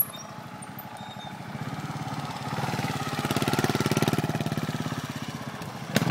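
Trials motorcycle engine running at low revs with an even pulsing beat, swelling as the throttle opens about halfway through and then easing off. A sharp knock near the end.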